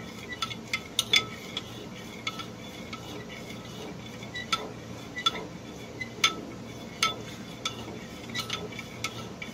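A utensil stirring a pot of simmering maja blanca mixture, with irregular scrapes and sharp clinks against the pot's side, some of them ringing briefly. A low steady hum sits underneath.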